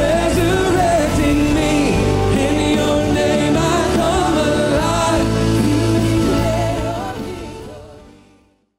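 Christian worship song: band with a sung melody, fading out over the last two seconds into silence.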